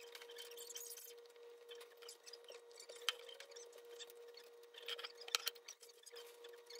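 Faint scattered clicks and light handling noises over a steady low hum in a small room, with two sharper clicks about three and five seconds in.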